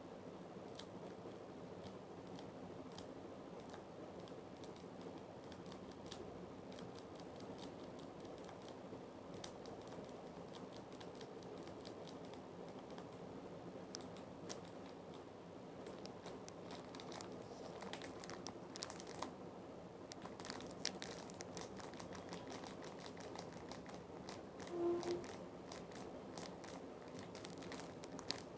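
Scattered small clicks and crinkling from hands handling slime-making materials, over a steady low background hum. The clicks grow busier in the second half, and a brief tone sounds near the end.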